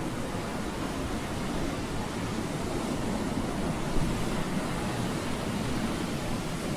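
Steady low rushing noise with no pitched tone, with one brief small swell about four seconds in.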